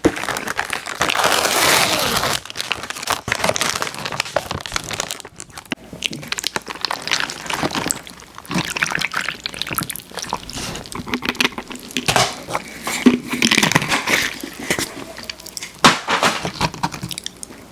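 Close-miked ASMR eating sounds around Halloween Oreo cookies: crinkling and crackling with sharp clicks, mixed with wet, liquid mouth sounds.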